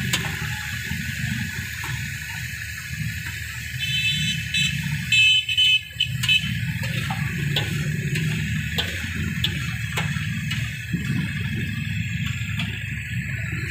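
Chicken pieces frying on a large iron tawa griddle, with a metal spatula scraping and clicking on the iron over a steady low rumble, and a few louder knocks about five to six seconds in.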